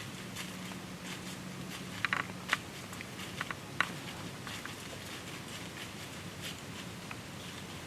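Quiet outdoor background with a faint steady hum and a handful of short, sharp crackles and clicks bunched about two to four seconds in.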